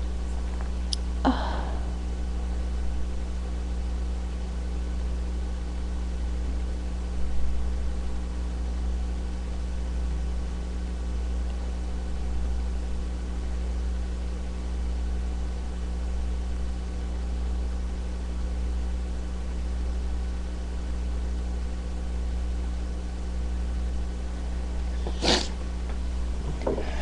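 A person's short, sharp nasal burst near the end, with a few fainter sniffs and breaths earlier, over a steady low hum.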